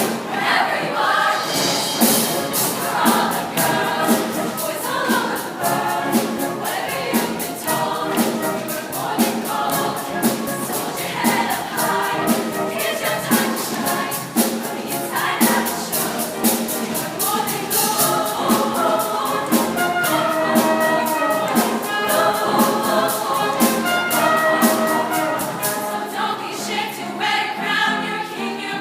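Girls' show choir singing with a soloist over instrumental backing with a steady beat.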